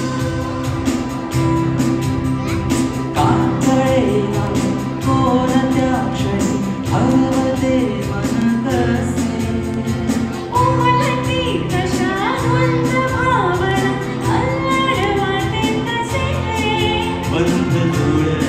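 Live band playing a Marathi film song, with a steady beat on hand drums and guitars and keyboard under a man and a woman singing into microphones. The vocal lines grow fuller about ten seconds in.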